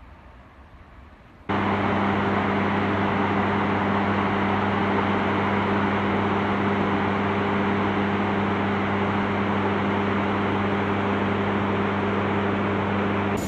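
Loud, steady roar of water rushing from a dam's spillway discharge, starting abruptly about a second and a half in. A steady low hum runs beneath it.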